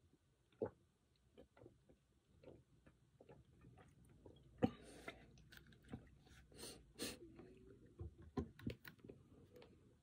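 Quiet mouth sounds of eating: scattered soft clicks and smacks of chewing and swallowing, with a few breathy exhales and one sharper click about halfway through.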